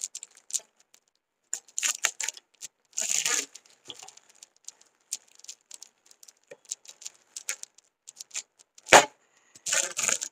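Packaging being torn open and crinkled by hand: scattered rustles, clicks and a few longer tearing rasps, with one sharp snap near the end.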